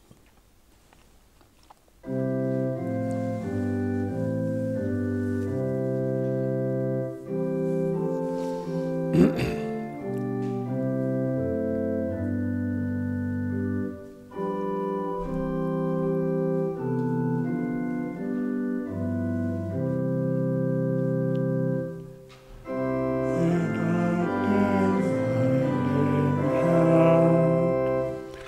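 Church organ starting about two seconds in with slow, held chords that pause briefly a few times. A sharp knock about nine seconds in. Near the end, singing voices join the organ.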